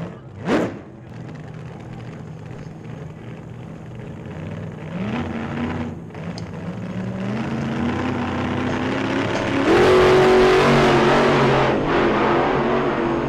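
Pit bike engine running and revving, its pitch climbing in steps as it accelerates through the gears, with wind rushing over the microphone from about ten seconds in. A short loud burst comes about half a second in.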